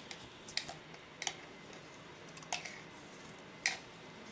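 Metal spoon clinking against a stainless-steel mixer-grinder jar while scraping thick mango lassi out into a glass: four sharp clinks, a second or so apart.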